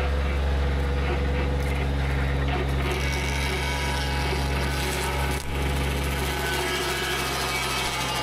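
Baumalight hydraulic tree saw on a John Deere compact diesel tractor cutting through a tree trunk: the saw blade grinding through the wood over the steady low drone of the tractor's engine, with a brief dip about five and a half seconds in.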